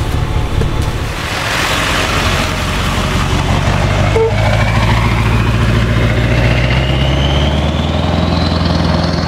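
Vehicle engine running and speeding up: its low hum and a thin high whine both rise in pitch over the second half.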